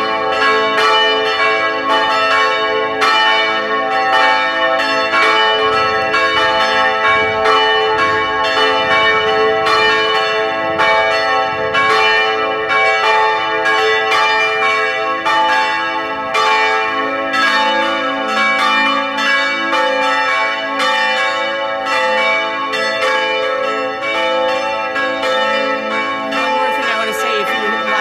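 Church bells ringing continuously, several bells struck in quick succession so that their tones overlap in a dense, steady peal.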